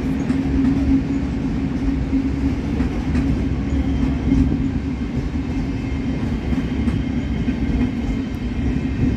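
Double-deck regional train running on the tracks: a steady rumble with a constant low hum and a few faint clicks from the wheels.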